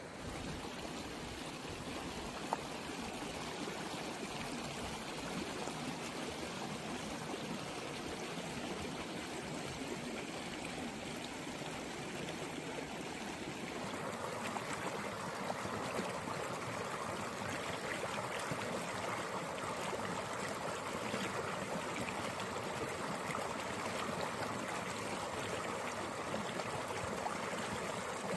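Shallow stream running over rocks, a steady rush of water that turns brighter and a little louder about halfway through as water splashes over a small rocky cascade close by.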